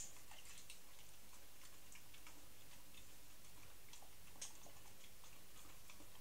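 Pit bull chewing raw chicken breast: faint, irregular clicking of teeth and mouth, with one slightly sharper click about four seconds in.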